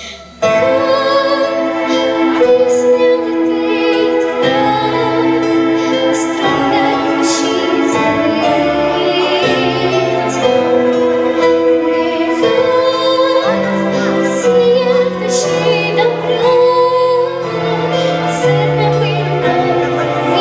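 A girl singing a pop-style song into a microphone over instrumental backing with bass and percussion, her voice held in long notes with vibrato. The music comes in sharply about half a second in, after a brief quieter moment.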